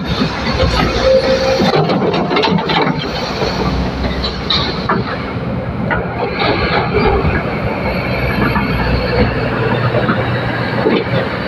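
Excavator at work: continuous machinery noise with repeated metallic clanks and squeals.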